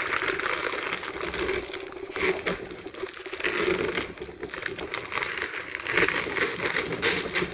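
Crinkly Easter-egg packaging being handled and unwrapped, an irregular rustling and crackling.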